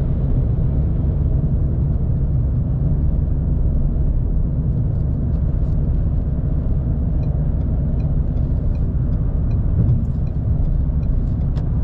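Steady road and engine noise inside a car cabin at highway speed, a low rumble. Faint regular ticks come about twice a second in the second half.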